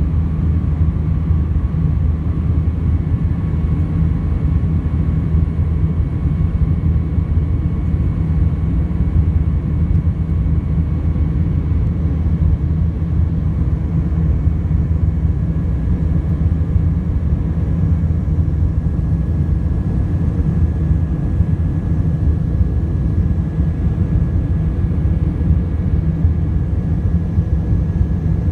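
Steady cabin noise of an Airbus A319 climbing after takeoff, heard inside the cabin by the wing: a loud, even low rumble of engines and airflow with faint steady whining tones over it.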